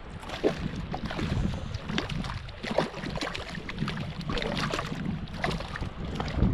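Irregular splashing and sloshing in shallow water as a large hooked rainbow trout thrashes at the shore and is scooped into a rubber-basket landing net. Wind rumbles on the microphone underneath.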